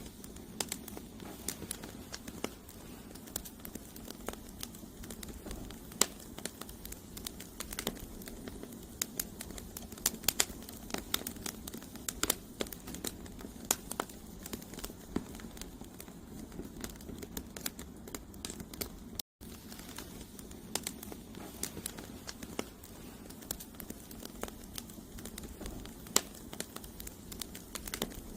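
Campfire of burning firewood logs crackling: frequent irregular sharp pops and snaps over a steady low rush of flame. The sound cuts out for an instant about two-thirds of the way through.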